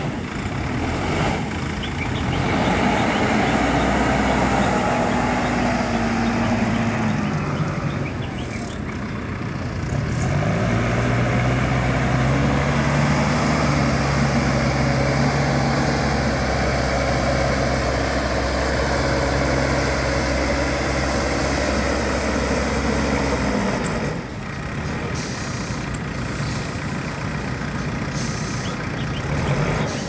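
ACE AX-124 backhoe loader's diesel engine running under load, its revs rising about ten seconds in, holding steady, then falling back about three-quarters of the way through.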